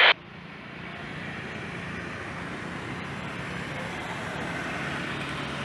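Steady rushing noise of jet engines running at an airport, slowly growing a little louder, with a faint low hum underneath.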